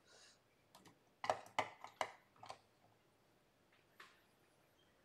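Small sharp clicks and taps of a screwdriver and fingers on the plastic modules and terminals of a wiring training panel: a quick run of about five between one and two and a half seconds, and a single one near four seconds.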